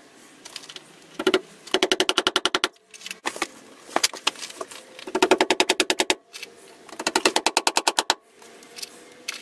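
Cordless drill-driver run in about six short bursts, each a fast rattling clatter over a steady motor tone. The three longest bursts last about a second each.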